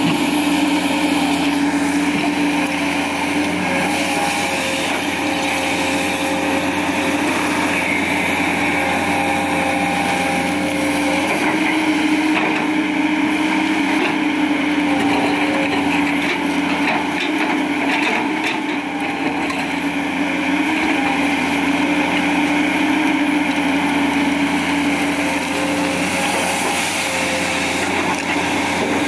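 Komatsu PC200 hydraulic excavator's diesel engine running steadily under working load, with a steady whine over it, as the bucket digs and lifts garbage and earth. Scattered knocks from the debris sound in the middle stretch.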